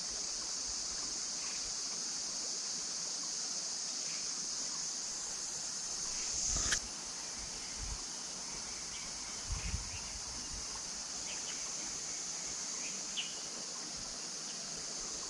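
Steady high-pitched insect chorus. A brief knock sounds about halfway through, followed a few seconds later by a few soft low thumps.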